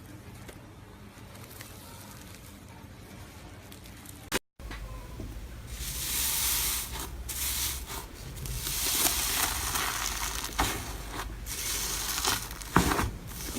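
Slime being squished and worked by hand, giving wet crackling and popping with many sharp clicks. It starts about five seconds in, after a quiet stretch.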